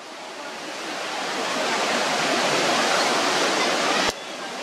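Hawkesbury River floodwater rushing fast through trees and scrub, a steady noise of fast-flowing water. The sound drops sharply about four seconds in and swells back up.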